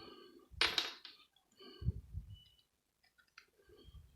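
Metal cutters working at a plastic multi-plug adaptor: a sharp snap about half a second in, a dull knock around two seconds, then scattered small clicks of plastic and metal parts.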